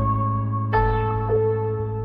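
Background music: sustained synth chord over a held bass note, with a new higher note coming in under a second in, between sung lines of a pop song.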